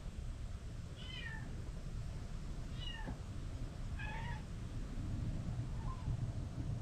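A mother cat calling her hidden kittens out with short, high-pitched meows, four in a few seconds, the last one faint.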